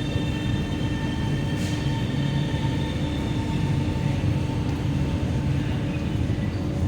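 Guangzhou Metro Line 22 intercity train running at steady speed: a continuous rumble of wheels on the rails with a steady hum.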